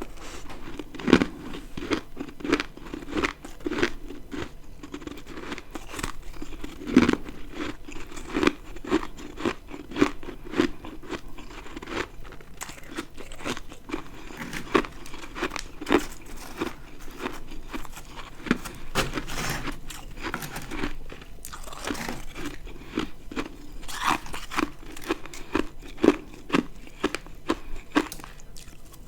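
A person biting and chewing ice: a steady run of crisp crunches, about one or two a second, with a few louder bites along the way.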